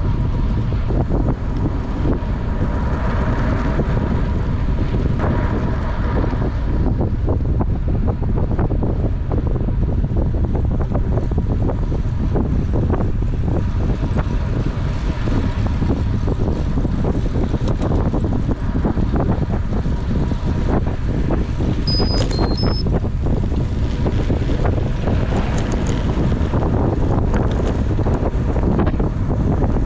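Wind buffeting the microphone of a camera on a road bike riding at speed, a steady low rumble. A few brief high tones sound about two-thirds of the way through.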